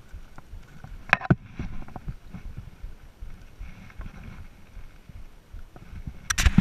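Footsteps and gear rustling on rocky ground close to the microphone, with a sharp knock about a second in and a cluster of louder knocks and scrapes near the end.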